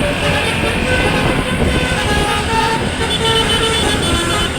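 Tour bus's basuri telolet multi-tone horn played by hand, a tune of short held notes jumping between pitches, over steady low vehicle and road noise.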